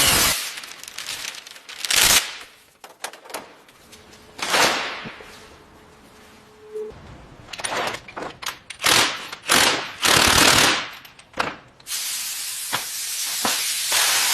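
A compressed-air tool gives a series of short hissing blasts, then a steady hiss for the last couple of seconds.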